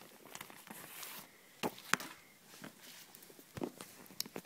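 Faint handling noise: a few soft knocks and rustles, with a sharper knock about two seconds in and two more near the end.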